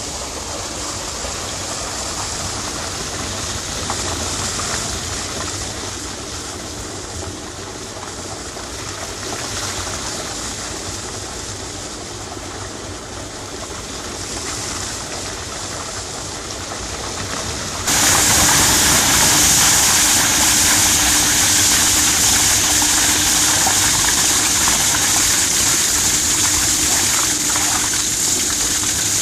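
Waste water separation screen running: a steady wash of water and machine noise as the belt screen carries off carrot debris. About eighteen seconds in it jumps louder, to the gush of dirty process water pouring straight onto the mesh belt, with a steady hum under it.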